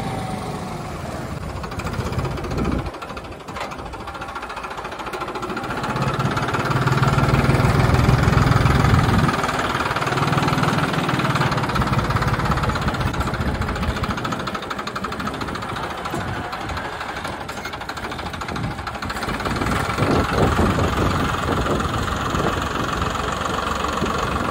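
Farmtrac 60 tractor's diesel engine running steadily. It dips briefly about three seconds in, then grows louder for a few seconds a third of the way through.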